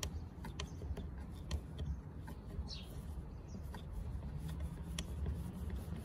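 Small clicks and taps of fingers working parts into a plastic side-mirror housing, over a steady low rumble. A short high chirp sounds a little before the middle.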